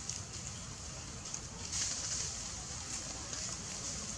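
Outdoor ambience: a steady high-pitched hiss that grows louder about two seconds in, over a low rumble.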